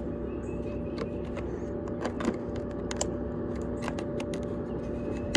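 Clothes dryer running and blowing out through its exhaust vent, a steady hum, with light clicks and rattles scattered through it.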